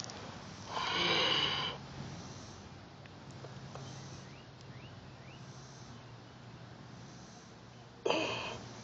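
Kitten hissing twice while being held: a breathy hiss of about a second near the start, and a shorter one near the end.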